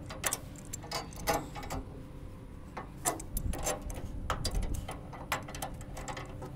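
Pipe wrench turning a steel turnbuckle on a flex-wing rotary cutter's rear linkage, adjusting it to level the cutter's tongue: irregular metallic clicks and clanks, about a dozen, as the wrench grips and the threaded turnbuckle turns.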